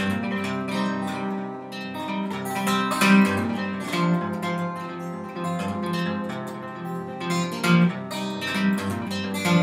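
Acoustic guitar played alone, an instrumental passage of picked chords and bass notes between sung verses.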